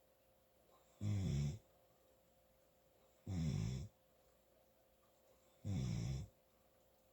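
A sleeping person snoring loud, three short snores a little over two seconds apart, each lasting about half a second.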